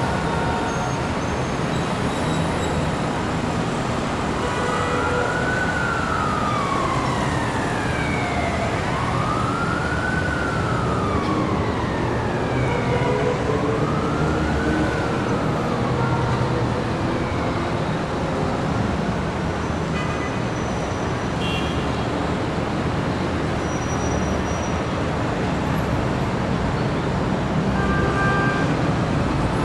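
Busy city street traffic, a continuous rumble, with an emergency vehicle siren wailing through it. The siren rises and falls slowly three times, starting about five seconds in, then fades out.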